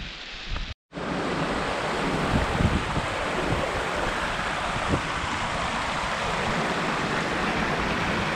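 Rushing water, a steady even rush, beginning after a brief break under a second in.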